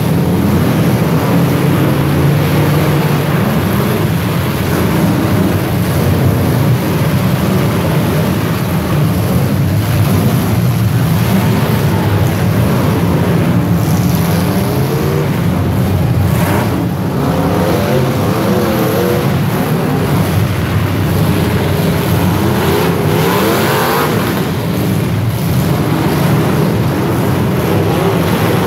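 Several demolition derby cars' engines running and revving together in a loud, continuous din, the pitch rising and falling as drivers throttle up to ram one another, with a sharp bang about seventeen seconds in.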